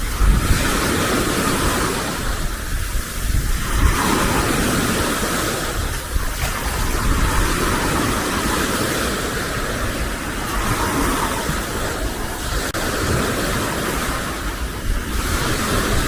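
Surf washing onto a sandy beach, swelling every few seconds, with wind rumbling on the microphone.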